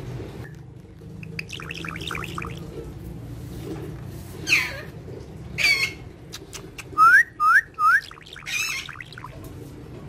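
Indian ringneck parakeet chirping and squawking: a quick run of short chirps, a few single harsher calls, then three short rising squeaks about seven seconds in, the loudest sounds here.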